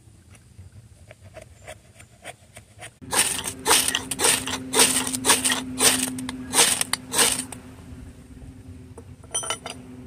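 Ferro rod scraped hard with a steel knife spine, about eight fast hissing strikes roughly two a second, throwing sparks onto wood shavings to light tinder. Before that, a few faint light knife scrapes.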